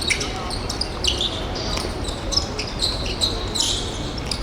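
Sports-hall game play: players' shoes squeaking on the court floor in many short, high chirps, over the steady low rumble of a large hall.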